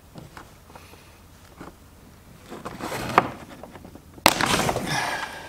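Screwdriver prying at the plastic clips that hold a fog-light bezel in the back of a Volvo S60 front bumper cover: a sharp click about three seconds in, then a sudden loud crack and about a second of rattling, scraping plastic as the bezel pops free.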